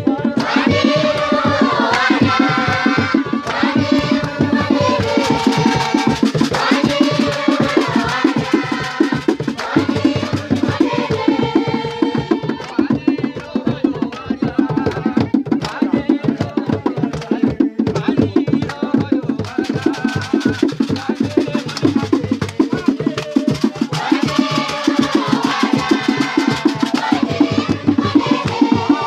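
Congregation singing in worship over hand-clapping and fast, steady percussion, the voices coming in repeated sung phrases.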